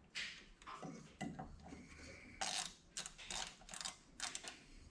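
Faint metallic clicks and clinks of bolts and tools at the rear driveshaft flange of a 2009 Ford Escape as its bolts are fitted. The clicks quicken to about three a second in the second half.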